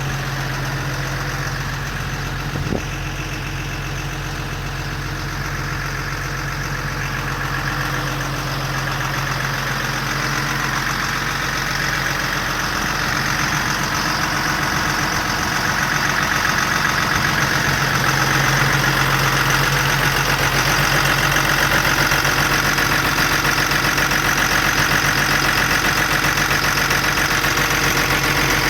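Diesel engine of a MAN 6x4 concrete mixer truck idling steadily. There is a single click a little over two seconds in, and the engine grows somewhat louder partway through.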